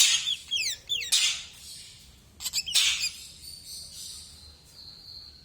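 Male ashy drongo calling, mixing quick falling whistled notes with three harsh, rasping bursts and, in the second half, one long held high whistle.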